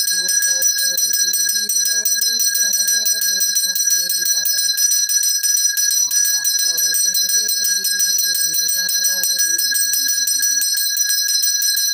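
Temple hand bell (ghanti) rung rapidly and without a break during puja. A man's voice chants a prayer over it in long held phrases, pausing briefly about five seconds in and stopping near the end.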